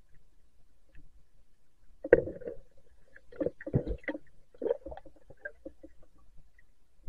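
Muffled underwater knocks and rumbling, heard through a submerged camera as the spearfisher moves in shallow river water: a cluster of irregular low thumps starting about two seconds in, the first one loudest, dying away after a few seconds.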